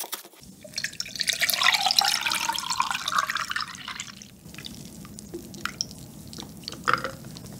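Coolpis drink poured from a paper carton over ice cubes into a glass mug, a loud liquid splashing and gurgling for the first few seconds. It then eases to a thinner, quieter stream, with a couple of sharp clicks later on.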